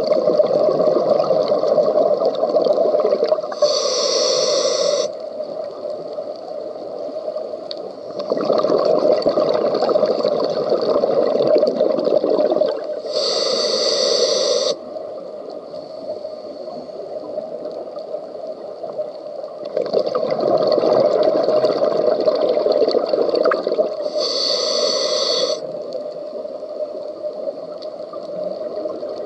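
A scuba diver breathing through a regulator underwater, three breaths about ten seconds apart: each a few seconds of bubbling exhalation, then a short hiss of inhalation, then a pause.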